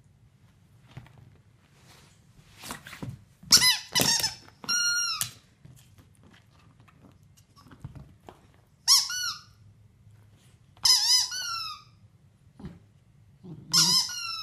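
Squeaky toy pressed by a pet, giving about six short squeaks in clusters, some bending up and down in pitch, with quiet gaps between.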